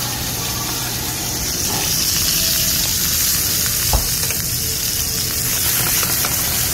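Raw shrimp sizzling in hot oil in an aluminium sauté pan on a gas burner, a steady hiss that grows louder about two seconds in. A single sharp knock sounds near the middle.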